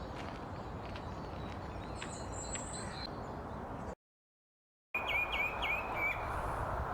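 Wild birds chirping over a steady background of outdoor noise: a thin, high call about two seconds in, then, after a second of silence, a quick run of about five chirps.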